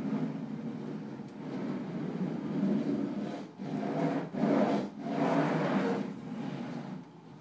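A bundle of pens rubbing and scraping across paper in drawing strokes, each about a second long, with short breaks between them.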